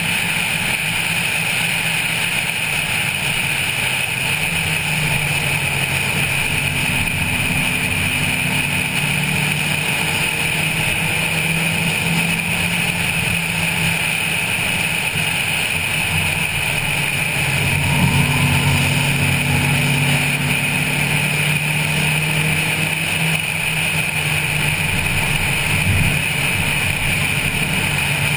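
A stock Honda Civic 1.5's engine pulling at track speed, heard from the roof with steady wind and road rush over it. The engine note comes up louder twice, about five seconds in and again around eighteen seconds in.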